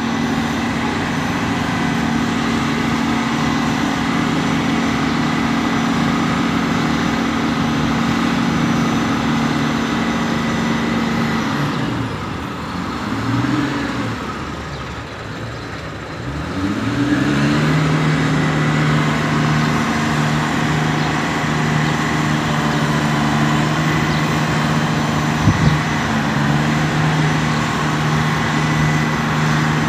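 Diesel engine of a 75-ton mobile crane running steadily while it lifts a load. About halfway through, the engine speed dips and wavers for a few seconds, then rises again and holds steady at a new speed. A single short knock comes late on.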